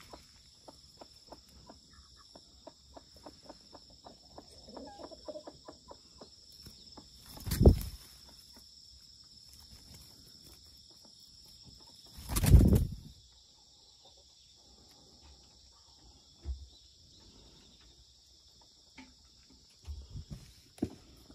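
A hen flapping her wings in two loud short bursts, about seven and twelve seconds in, with soft scratching and ticking from her feet on the dirt beforehand.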